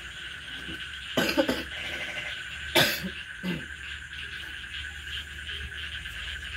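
A person coughing in short, sudden bursts: once about a second in, again near three seconds, and a smaller one just after. Under them runs a steady, high-pitched background chorus.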